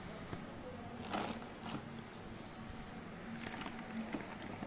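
Faint rustling and light clinks and clicks as the packaging and mixer-grinder parts are handled while the box is unpacked.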